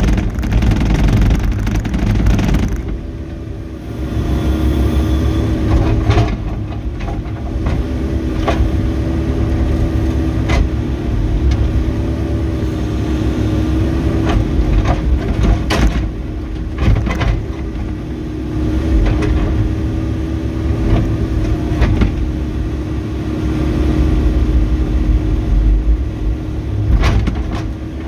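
Volvo ECR88D mini excavator's diesel engine running steadily under load while it digs, with repeated sharp knocks and clanks from the bucket and arm working the ground.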